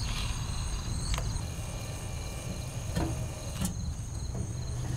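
Crickets chirping steadily over a low hum, with about three light clicks from a screwdriver as the back-panel screws of a pellet stove are taken out.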